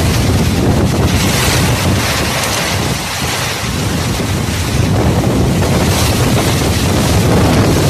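Typhoon winds and heavy rain, with strong gusts buffeting the microphone. The gusts ease a little about three seconds in and build again a couple of seconds later.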